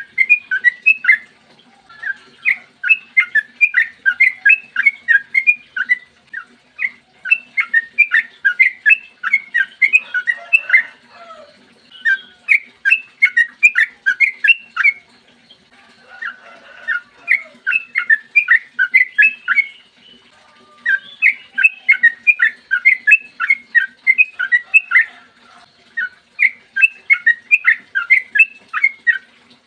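Yellow-vented bulbul (trucukan) singing long runs of rapid, repeated chirping notes, several a second, phrase after phrase with short breaks between.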